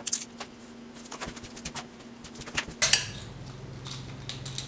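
Metal tools and transmission parts clinking and tapping against each other: a string of light metallic clicks, with a louder clatter about three seconds in.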